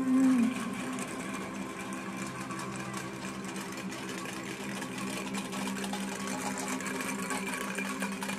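Tin cans tied behind a Nissan Figaro clatter and rattle along the road as the car drives off, a rapid steady chatter over a low engine hum. The sound fades out near the end.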